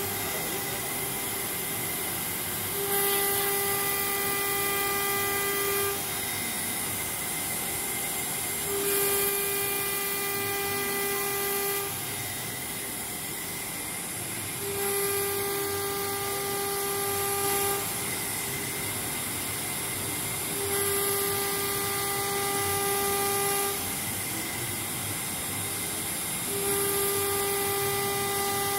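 CNC router spindle cutting a plastic sheet: a steady high machine tone over the hiss of the cut. The tone grows louder and fuller for about three seconds out of every six, as the bit sweeps back and forth through the sheet.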